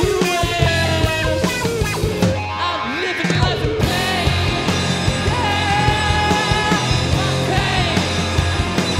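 Live rock band playing: electric guitar, electric bass and a drum kit with cymbals keeping a steady beat, with a voice singing over them.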